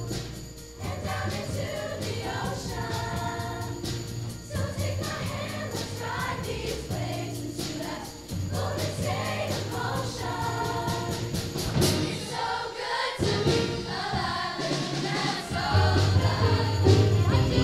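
Middle school show choir singing an upbeat number in unison and parts, over instrumental accompaniment with a steady bass line and regular drum beats.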